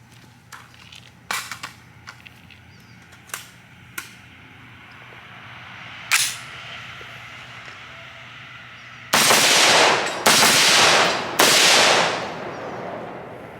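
AR-15 pistol with a Fostech binary trigger being fired: a few scattered sharp cracks, one louder with a ringing tail about six seconds in, then three loud strings of rapid fire, each about a second long, near the end.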